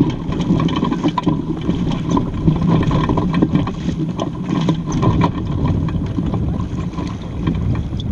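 Wind rushing over the microphone and water splashing along the hull of a small Bauer 10 sailboat under way, steady throughout with many small splashes and ticks.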